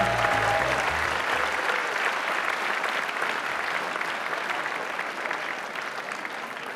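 Audience applause, a dense even clapping that slowly thins and fades. The last bass notes of salsa music die away in the first couple of seconds.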